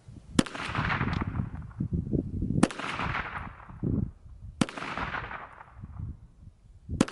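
KelTec PMR-30 .22 Magnum pistol fired four times in slow succession, about two seconds apart. Each sharp crack trails off in a long echo.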